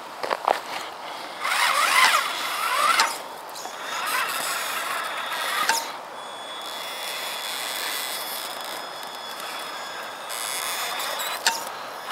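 Traxxas Summit RC truck's electric motor and geartrain whining in two throttle bursts as it crawls up a dirt mound, the pitch rising and falling. A quieter, steadier whine follows, with a sharp click near the end.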